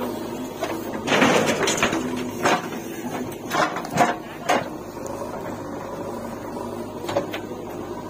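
JCB 3DX backhoe loader's diesel engine running steadily while a bucketful of earth is tipped into a steel tractor trolley: a rush of falling soil about a second in, then several sharp knocks over the following seconds.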